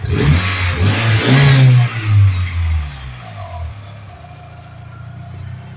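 Turbocharged four-cylinder engine of a 1G DSM revved in quick throttle blips over the first three seconds, then dropping back to a steady idle.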